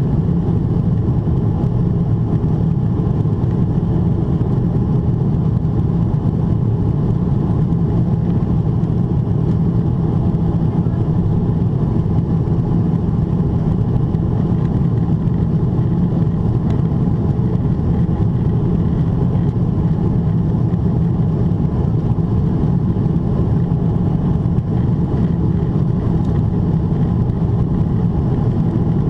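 Steady low cabin roar inside a Boeing 777-300ER in its climb: airflow along the fuselage and its GE90-115B engines at climb thrust, heard through the cabin window.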